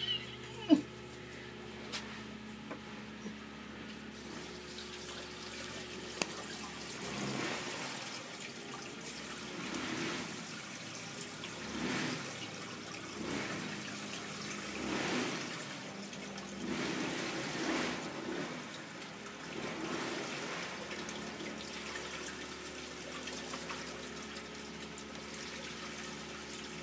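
Home-made wine being poured from a plastic bucket into a funnel in the neck of a wicker-covered demijohn, the liquid gurgling and splashing through the funnel in repeated surges as the bucket is tipped. A short sharp knock comes just after the start.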